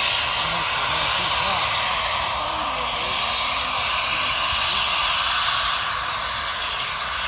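Two steam locomotives, Southern Railway 2-8-0 No. 630 and 2-8-2 No. 4501, working together at the head of a passenger train: a steady rush of exhaust and steam that swells slightly now and then, with faint voices underneath.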